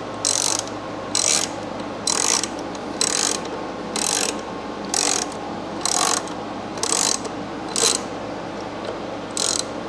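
Hand socket ratchet clicking in short strokes, about one a second with a brief pause near the end, as the coil-pack hold-down bolts are run down.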